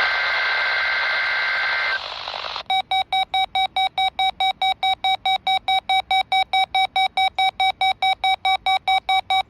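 NOAA weather radio EAS test: the two-tone SAME data header, a shrill steady warble over heavy radio static. About two and a half seconds in, the static cuts off and the RadioShack 12-254 receiver's alert alarm beeps rapidly, about four beeps a second.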